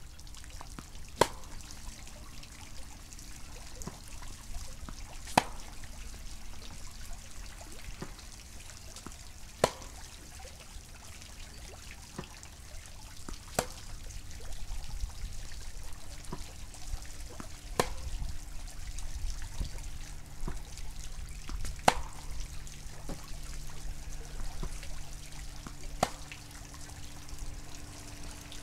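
Tennis racket, a Yonex VCORE Tour G, striking the ball on groundstrokes: seven sharp hits about four seconds apart, with fainter ticks between them. Under the hits runs a faint steady hum and a low rumble.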